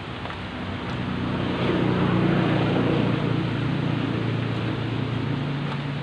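A motor vehicle's engine passing close by, its hum swelling over about a second, holding, then fading near the end.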